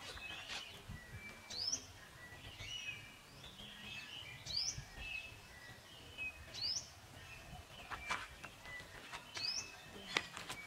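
Small birds chirping: one repeats a short, quickly rising whistled note about every two seconds, with fainter twittering between, over a low outdoor rumble. A few brief sharp sounds come near the end.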